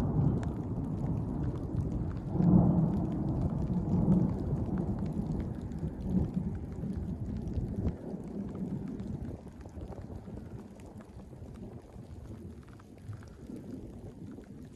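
Thunder rolling after a bright lightning flash: a low rumble that swells about two seconds in, then slowly dies away over the second half.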